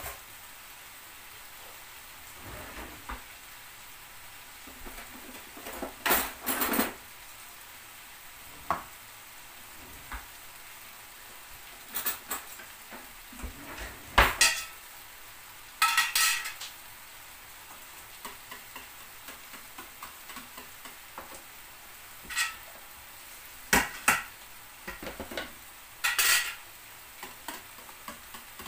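Diced potatoes and chicken sizzling faintly in a frying pan, with about eight sharp clinks and clatters of utensils against dishes spread through. Near the end, a metal whisk ticks quickly against a plastic tub as yogurt is whisked.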